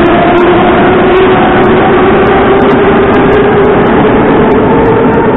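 Moscow Metro train accelerating out of the station into the tunnel: the traction motors whine, rising steadily in pitch, over loud wheel and running noise.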